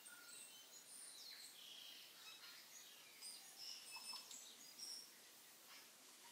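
Faint birdsong: several birds chirping and whistling in short, high calls over a light background hiss.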